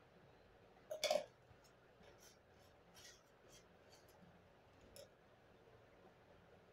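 A steel ladle and plastic oil bottle being handled and set aside: a sharp double clatter about a second in, then a string of light clicks and ticks.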